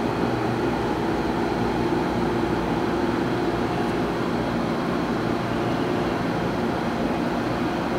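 Steady, even mechanical hum made of several constant tones, like a running machine or ventilation unit in the room.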